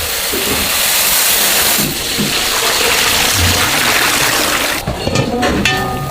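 Loud steady hiss of kitchen cooking noise, steam and liquid in big pots, that drops away about five seconds in.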